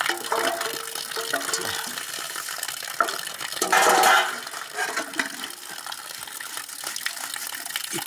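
Water splashing and running, with scattered clicks and knocks; the water gets louder for a moment about four seconds in.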